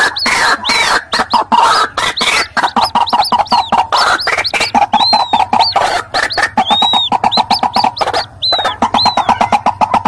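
White-breasted waterhens calling in a noisy mix of adult and chick calls. A fast run of short croaking notes, several a second, is overlaid with thin high notes that rise and fall.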